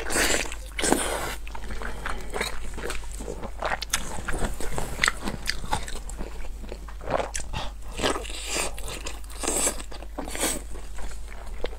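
Close-miked biting and chewing of oily pig intestines: wet, sticky mouth sounds with an irregular run of sharp clicks as the skin is bitten and torn off with the teeth.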